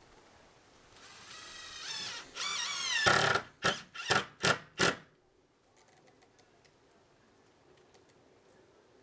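Power drill spinning up with a whine that rises and grows louder, then driven in four short trigger bursts, as when running a screw into wood.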